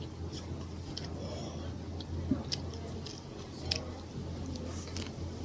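Close-miked chewing of a soft, sticky rice paper roll: wet, squishy chews with scattered sharp mouth clicks, the loudest a little after two seconds and near four seconds, over a low steady hum.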